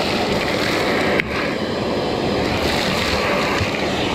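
Shop vacuum running steadily, its hose sucking up dirt and leaf debris, with one sharp click about a second in.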